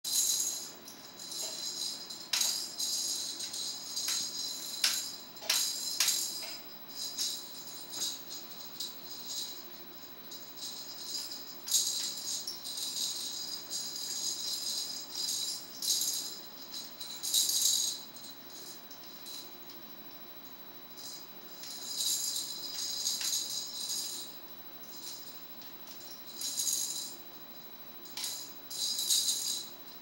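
A Timneh African grey parrot shaking a small plastic toy maraca held in its beak: the beads rattle in irregular short bouts with brief pauses between, and a few sharp clicks come in the first several seconds.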